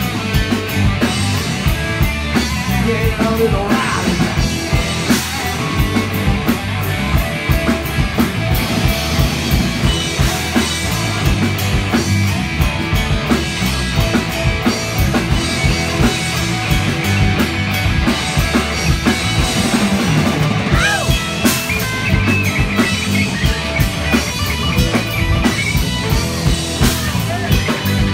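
Live rock band playing electric guitars and a drum kit, with a steady driving beat.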